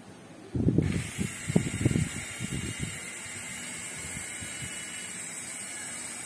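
Small electric motors of a toy remote-control helicopter spinning its rotors up to speed: a steady high whine that holds for about five seconds and stops near the end. Low gusty thumps and rumbles during the first two seconds.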